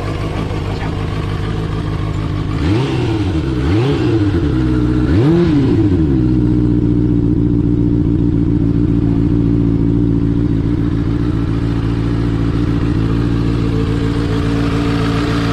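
QJmotor Race 600RR's 600 cc inline-four engine running through its stock muffler, blipped three times about three to six seconds in, each rev rising and dropping quickly, then settling to a steady idle.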